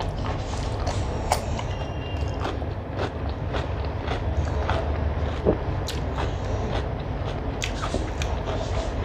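Close-up chewing, starting on a bite of raw cucumber slice: small crunches and wet mouth clicks scattered irregularly throughout, over a steady low hum.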